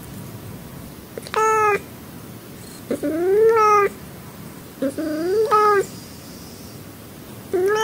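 Domestic cat meowing: a string of about five separate meows, one every second or two. Some hold a steady pitch and others rise, over a faint steady hiss.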